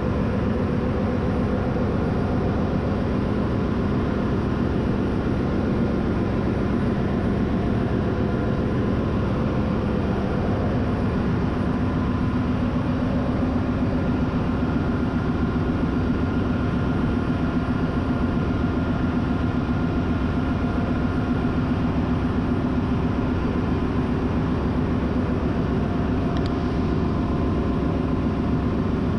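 Steady drone of a ship's engine-room machinery running continuously, with a few faint steady tones in it.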